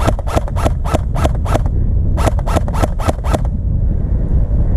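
Airsoft gun firing quick semi-automatic shots, about four or five a second, in two strings with a short pause between, and another string starting near the end. A steady low rumble runs underneath.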